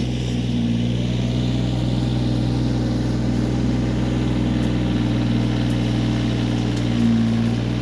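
Kioti CK20S compact tractor's three-cylinder diesel engine running steadily, with one tone in its hum strengthening briefly about seven seconds in.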